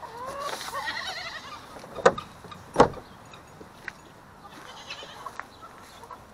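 A goat bleats once, a quavering call lasting about a second and a half, followed by two sharp knocks about two and three seconds in, then faint rustling.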